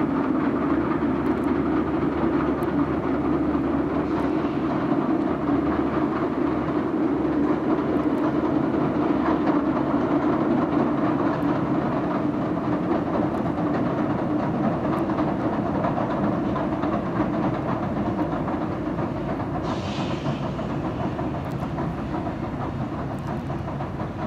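Southend Pier Railway train running along the pier: a steady rumble that fades slowly near the end.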